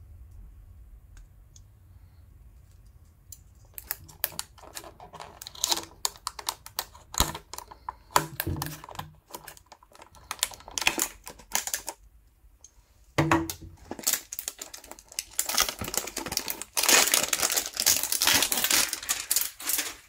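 Hands opening a cardboard hanger box of trading cards: irregular clicks, taps and crinkling from a few seconds in, then a denser, louder stretch of rustling and tearing of the packaging over the last few seconds.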